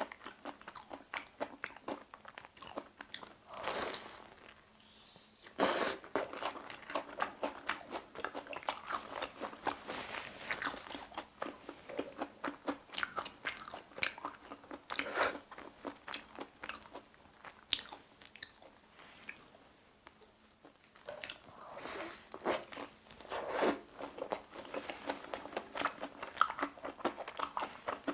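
Close-miked crunching and chewing of a crispy fried mozzarella corn dog: repeated crisp bites into the fried coating with chewing in between, the sharpest crunches coming a few times rather than evenly.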